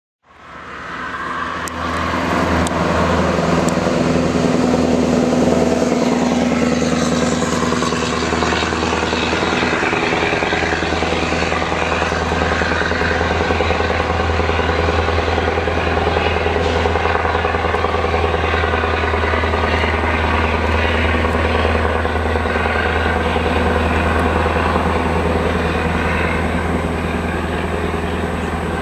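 Scania 143E 500's straight-piped 14-litre V8 diesel running with a deep, steady exhaust note, rising quickly in the first second and then holding loud and even.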